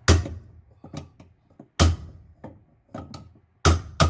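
Sharp knocks as a new motor fan is driven onto the motor shaft of a GE top-load washer. There is a strong knock at the start, another just under two seconds in, and fainter taps between, then a quick run of knocks, about four a second, near the end.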